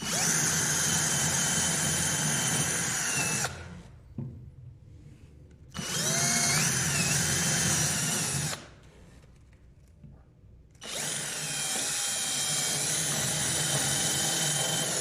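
DEKO cordless drill-driver drilling angled pilot holes into wooden floorboards. It runs in three spells of a few seconds each, with short pauses between holes and a steady motor whine.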